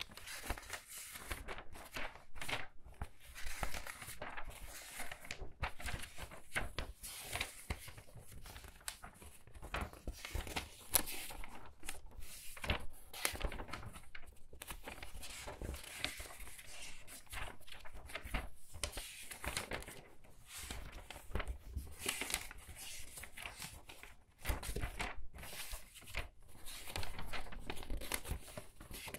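Pages of a book being turned quickly one after another, a steady run of short papery flips and rustles.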